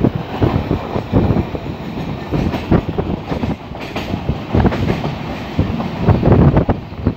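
Passenger train running, heard from inside a coach through an open barred window: a steady rumble with irregular clattering knocks from the wheels on the rails.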